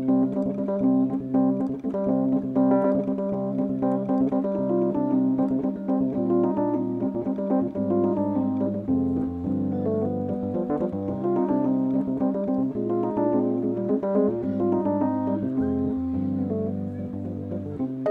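Rhodes electric piano played solo: dense held chords over a bass line that moves note by note.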